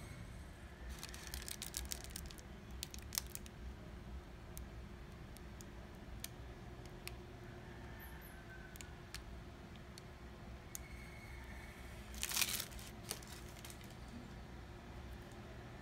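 Scattered crinkling and small clicks from handling during macaron filling, over a faint steady room hum. There are a few bursts in the first three seconds, and the loudest, densest crinkle comes about twelve seconds in.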